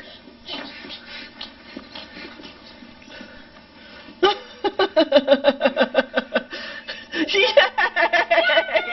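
Laughter breaking out about four seconds in, a quick run of rhythmic 'ha-ha' pulses falling in pitch, then going on in a more voice-like way toward the end; before that only faint room sound.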